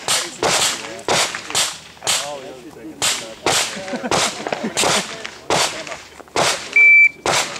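A string of about a dozen handgun shots fired at uneven spacing, some in quick pairs, each sharp crack with a short echo. There is a brief, steady high beep just before the last shot.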